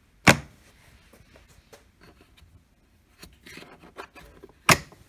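Spring-loaded plastic latches on a Park Tool BX-3 rolling tool case being flipped. The loudest sounds are two sharp snaps, one just after the start and one near the end, with quieter plastic clicks and rattles in between.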